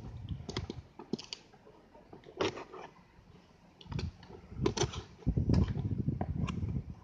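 Cardboard shipping box being cut and opened with a knife: scattered scrapes, taps and clicks of the blade and cardboard flaps. In the last couple of seconds there is a heavier, continuous rustle of the box being handled.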